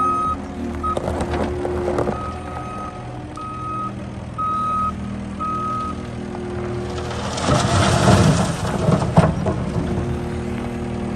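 Case SR175 skid steer's diesel engine running at low idle, held there because it won't rev up, while its back-up alarm beeps about once a second for the first six seconds. About seven seconds in, a loud rough scraping noise lasts a couple of seconds as the bucket pushes material.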